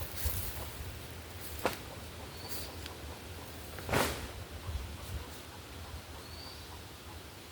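Outdoor ambience with a steady low rumble, two brief high chirps, and a few sharp clicks or knocks, the loudest about four seconds in.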